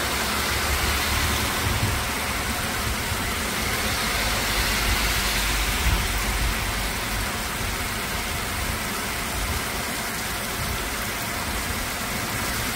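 Heavy rain pouring down in a steady, dense hiss, with a low rumble underneath.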